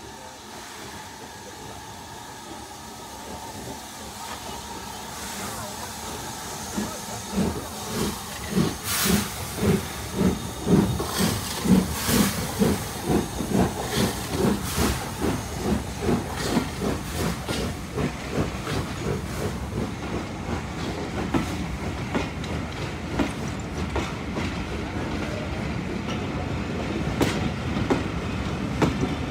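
LMS Jubilee class steam locomotive working a train away from a standstill: its exhaust chuffs build from faint to loud, about two to three beats a second, loudest as the engine passes close about a third of the way in. The coaches then roll past with a steady rumble and wheels clicking over the rail joints.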